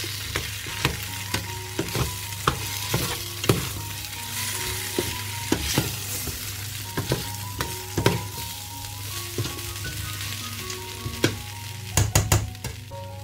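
Red lentils, onion and potato sizzling in a stainless-steel pot while a metal spoon stirs them, with frequent clinks and scrapes of the spoon against the pot. A quick run of sharp knocks near the end.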